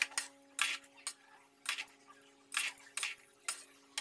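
Metal spoon scraping and clinking against an aluminium pot as cooked fried rice is tossed and mixed. There are about six short strokes at uneven intervals over a faint steady hum.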